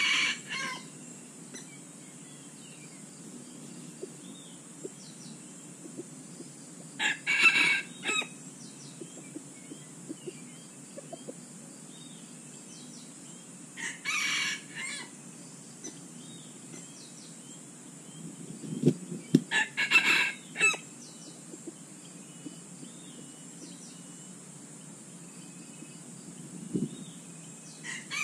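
Roosters crowing in a challenge exchange between a wild red junglefowl and a decoy rooster: short crows about every six or seven seconds, with a few soft thumps around the fourth crow.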